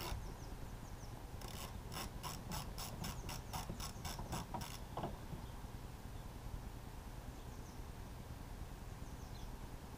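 Socket ratchet on a long extension clicking as it unwinds a bolt, about four clicks a second for some three seconds before it stops.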